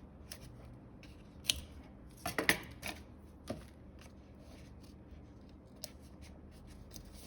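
A few short, sharp snips and clicks of scissors cutting card or tape, clustered in the first three and a half seconds, then only a couple of faint ticks.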